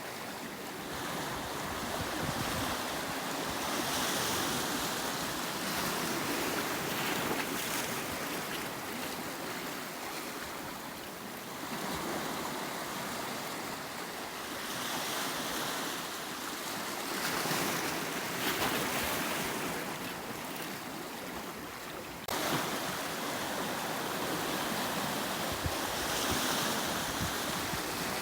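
Sea waves surging and washing against a rocky volcanic shoreline, the rush of water swelling and easing every few seconds.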